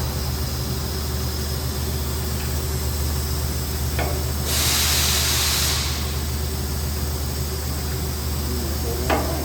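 A short blast of compressed air, about a second long, over the steady low hum of shop machinery, with a light knock just before it and another near the end.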